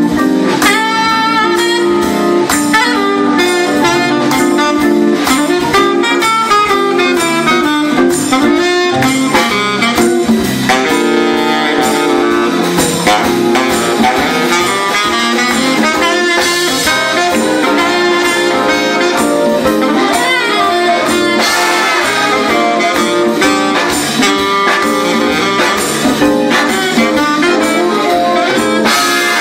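Big band playing an instrumental passage of a blues in jazz style, saxophones and brass to the fore over a steady drum beat.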